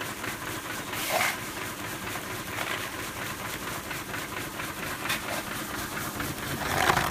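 Machinery running: a steady rattling noise with a few brief louder surges.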